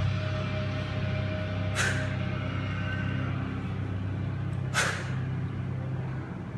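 Sharp, hissing exhalations from a woman doing continuous kettlebell snatches, two of them about three seconds apart, one for each rep, over a steady low hum.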